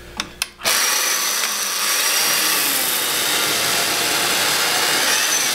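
Electric chain mortiser starting up under a second in and running steadily as its cutting chain plunges into a timber beam, cutting out a mortise.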